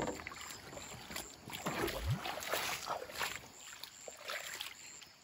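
A sharp knock of bamboo on bamboo right at the start, then water splashing and sloshing as a small bamboo raft is worked with a long bamboo pole on the river, with a brief rising sound about two seconds in.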